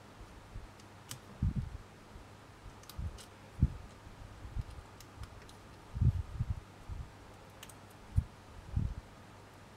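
Handling noise of wire being wrapped onto a wire-jewellery frame with pliers: several dull low bumps scattered through, with a few faint sharp ticks of wire and tool.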